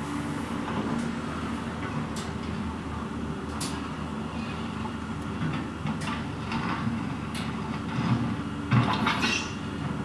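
Volvo wheeled excavator's diesel engine running steadily as it works, with occasional sharp clanks. Near the end a louder clatter as the bucket load of earth and rocks drops into a steel dump trailer.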